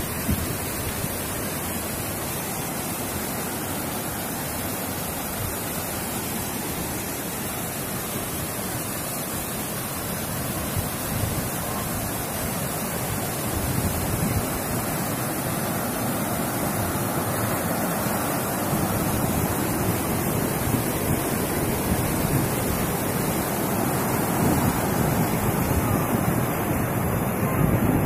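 Steady rushing of a waterfall and the whitewater stream below it, growing louder as the falls come nearer, with wind buffeting the microphone now and then, most near the end.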